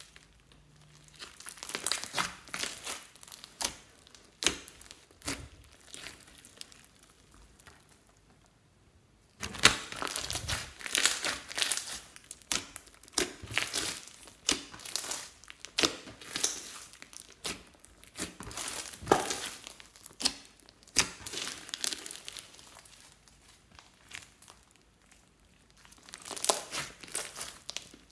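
Hands kneading, pressing and folding a big lump of glossy slime packed with foam beads, giving dense, irregular crackles, pops and squishes. It goes quiet for about a second roughly a third of the way in, then starts again sharply, and eases off again for a few seconds near the end.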